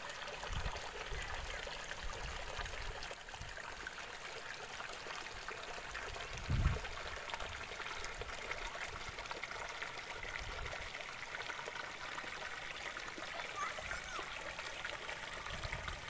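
Shallow floodwater running over stones, a steady rushing, with a few low thumps, the loudest about six and a half seconds in.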